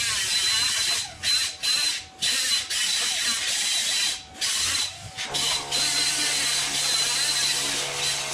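Plasma cutter torch cutting through steel truck frame, a steady harsh hiss that cuts out briefly several times in the first half. About five seconds in, a low steady hum joins it.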